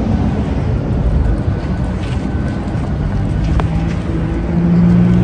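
Road traffic rumbling, with wind buffeting the phone microphone. A car engine's steady hum comes in louder near the end.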